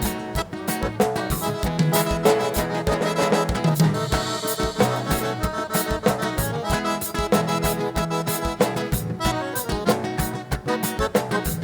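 Instrumental gaúcho dance music led by accordion (gaita), with a steady drum beat.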